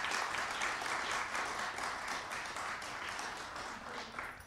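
Audience applauding, a dense run of clapping that dies away near the end.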